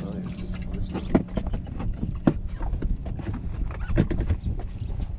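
Scattered knocks and thumps, irregular and a second or so apart, over a steady low rumble.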